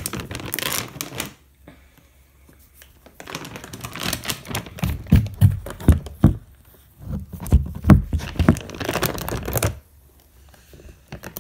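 Plastic cat food bag crinkling and rustling in three bouts with short quiet gaps, with dull thumps of cardboard being handled in the middle bouts.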